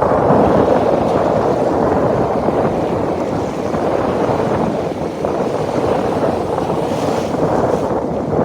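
Sea surf washing onto the beach, with wind buffeting the microphone in a steady, loud rush that swells and eases a little.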